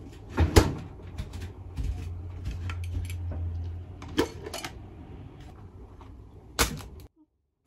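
Hands handling food containers, a dish with a wooden lid and a plastic storage box, giving sharp clacks about half a second in, around four seconds in and near the end, with lighter clicks between. A low steady hum sounds underneath for a couple of seconds, and the sound cuts off abruptly near the end.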